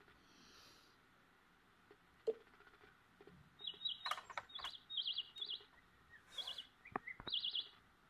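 A string of short, high, warbling bird-like chirps starting about three and a half seconds in, with a few faint sharp clicks among them.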